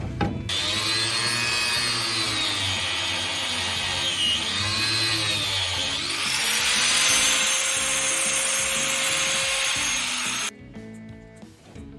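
Power tool cutting, its high whine dipping and recovering in pitch as it bites, running steadily for about ten seconds and then cutting off suddenly near the end.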